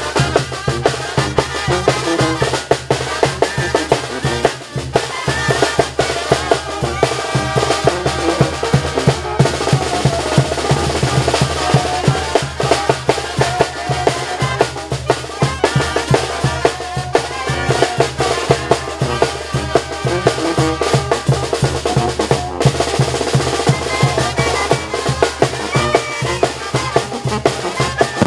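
A Mexican banda playing live: snare and bass drum keep a steady, fast beat under melody instruments.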